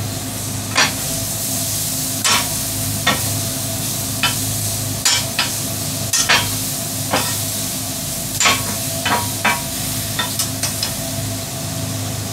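Seasoned chicken, peppers and onions sizzling on a flat-top griddle, with a metal spatula clacking and scraping on the griddle more than a dozen times at irregular intervals. A steady low mechanical hum runs underneath.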